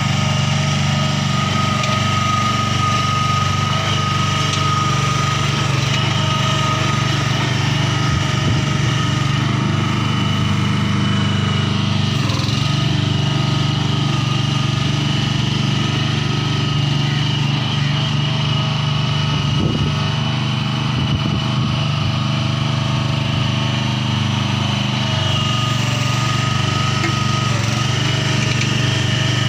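Honda petrol engine of a 1-ton hydraulic-drive ride-on cricket pitch roller running steadily as the roller drives along, with a steady high whine over the engine note.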